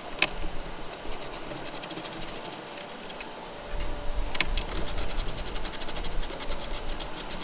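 Two quick runs of rapid, evenly spaced clicks from a hand tool working the grille's fasteners loose, the second run longer. A low rumble comes in about halfway through.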